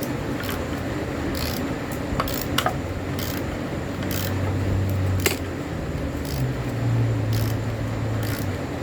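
Hand tools scraping and clicking on metal in short, irregular strokes while a damaged threaded hole on the exhaust part is worked, with a low hum partway through.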